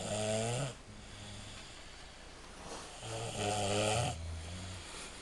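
A sleeping person snoring: two long, loud pitched snores about three seconds apart, the first at the very start and the second about three seconds in, with quieter low breathing sounds between them.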